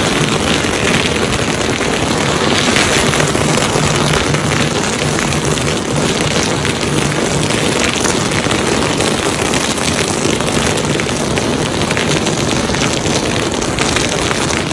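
A long hanging string of firecrackers going off in a rapid, continuous crackle of pops.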